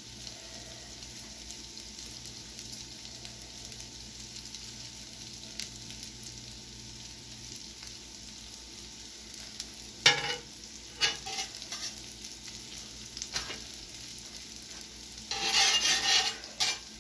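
Kielbasa, onions and bell peppers sizzling steadily on a steel flat-top griddle. A sharp metal clack comes about ten seconds in, then a few lighter clicks, and near the end a loud scrape of a steel spatula across the griddle.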